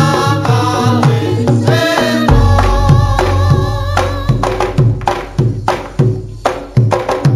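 Javanese barongan (jaranan) accompaniment music: a singing voice over hand-drum strokes, then about two seconds in the singing stops and a long deep low tone comes in under sharp drum strokes that thin out toward the end.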